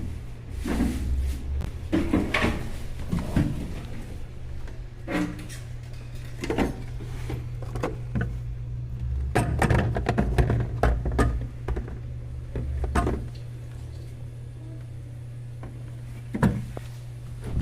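Side-by-side refrigerator being handled: irregular knocks, thuds and clatter of its doors and parts, over a steady low hum. The knocks are frequent for the first dozen seconds, then only a couple near the end.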